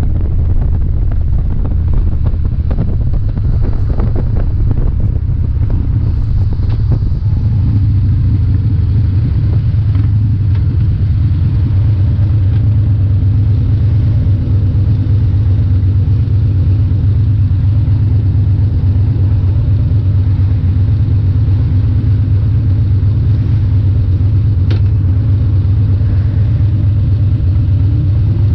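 Harley-Davidson Dyna's V-twin engine heard from the saddle. For the first several seconds it runs with wind rush over the microphone. It then settles into a steady low beat as the bike rolls slowly in traffic, and the revs begin to rise near the end.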